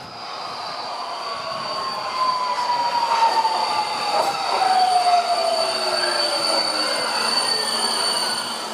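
Alstom Metropolis metro train pulling in and braking to a stop. The motor whine falls steadily in pitch as it slows, over a steady high squeal, and grows louder as the train nears; the squeal cuts off near the end.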